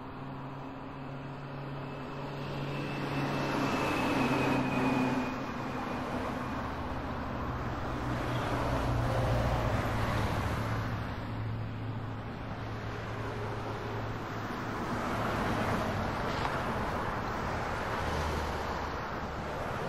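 Road vehicle noise: a steady low engine hum under tyre and road noise that swells and fades several times, as vehicles pass or speed changes.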